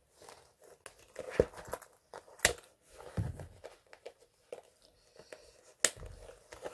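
A dark textured clutch bag being handled close to the microphone, rustling and crinkling, with a few sharp clicks and knocks. The loudest clicks come about two and a half seconds in and near the end.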